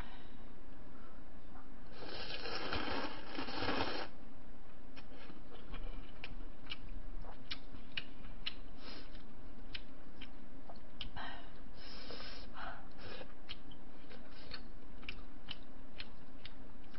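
A person slurping jjamppong noodles in a long noisy draw lasting about two seconds, then chewing with many small wet mouth clicks. There are a couple of shorter slurps about two-thirds of the way through.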